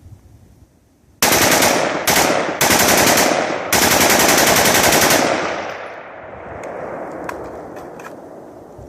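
Rapid automatic gunfire in four bursts lasting about four seconds in all, starting about a second in, followed by echo dying away and a few faint clicks.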